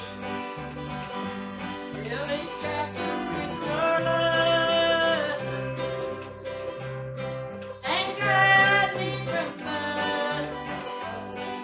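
Live country-style song played on acoustic guitar and electric bass guitar, with singing. The bass keeps a steady rhythm, and the sung notes are loudest and held about four and eight seconds in.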